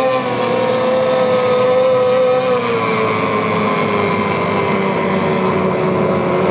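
Two-stroke racing outboard engines running at high revs: a loud, steady, high engine whine that drops a little in pitch about two and a half seconds in.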